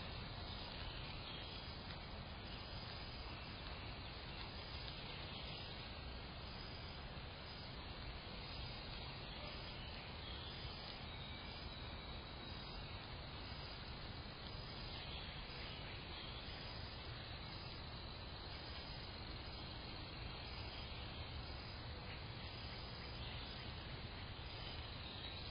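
Steady, faint outdoor background noise with an even hiss and no distinct calls or knocks.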